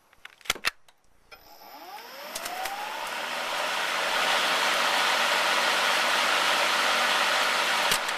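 A few clicks as the controls are worked, then the Greenworks 80V brushless cordless mower's motor and blade start: a rising whine as it spins up over a couple of seconds, settling into a loud steady whirring rush of the spinning blade. It is the mower's first start, running even though its battery shows only one blinking bar.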